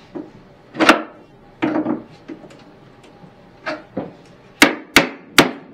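Claw hammer prying at decorative moldings glued to a wooden cabinet: a series of sharp knocks and cracks, the last three in quick succession near the end.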